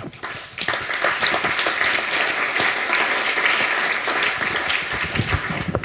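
Audience applauding, a dense steady clapping that starts just after the opening and dies away near the end.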